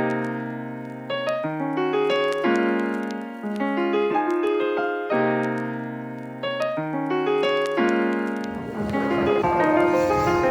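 Background music: piano playing sustained chords in a repeating pattern, with a denser, busier texture entering about eight seconds in.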